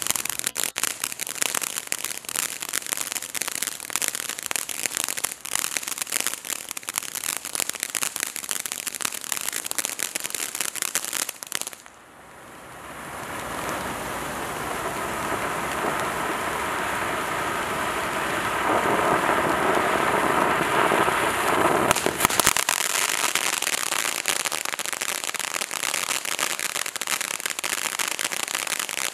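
Black Cat Illuminati ground fountain firework burning: dense crackling of popping sparks, which drops away suddenly about twelve seconds in. A steady rushing hiss then builds and runs for about ten seconds before the dense crackling returns.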